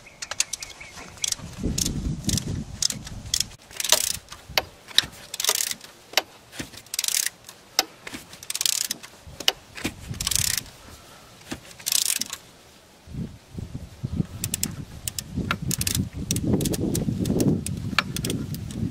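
Hand ratchet with a 12 mm low-profile hex socket turning a dummy plug in a 6.0 Power Stroke diesel's oil rail, its pawl clicking in short bursts about every second and a half among metal tool clicks. Gloved hands rub and scrape against engine parts.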